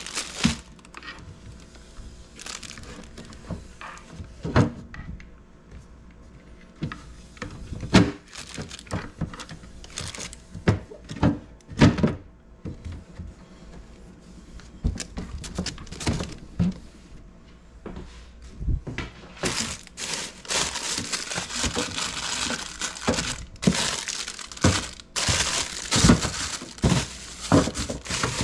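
Containers and plastic packaging handled while cleaning out a refrigerator: irregular knocks and thunks as things are set down, with plastic crinkling. About twenty seconds in, the crinkling and rustling becomes dense and continuous.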